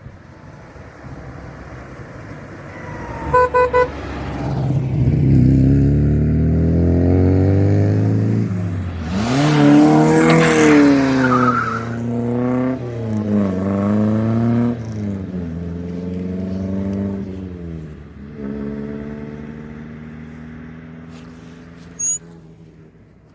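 A car horn sounds three short toots, then a car accelerates hard past, its engine pitch climbing and dropping back through several gear changes, loudest as it goes by and easing off toward the end.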